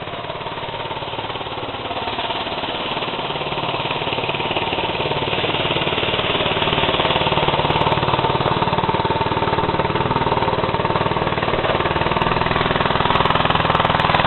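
Predator 72 cc single-cylinder four-stroke engine on a homemade motorized bicycle running under way, with a rattling, chattering tone. It grows steadily louder as the bike approaches.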